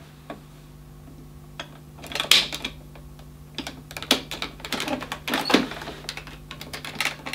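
Hoover Concept One upright vacuum cleaner, powered through a step-down transformer, giving a steady low hum with irregular clicking and crackling from about two seconds in. It is not running properly, a fault the owner suspects lies in its repaired power cable.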